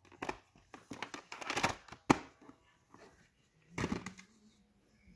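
Plastic clicks, knocks and rustles from a VHS cassette and its plastic clamshell case being handled, with a sharp click about two seconds in and another burst of clatter near four seconds.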